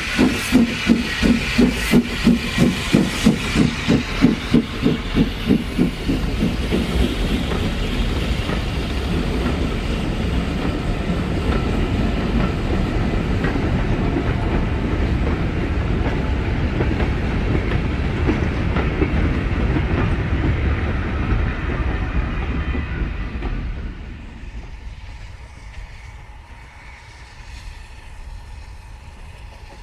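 Steam locomotive hauling a train past, its exhaust beating rhythmically at about three beats a second, then the carriages rolling by in a steady rumble that falls away sharply near the end.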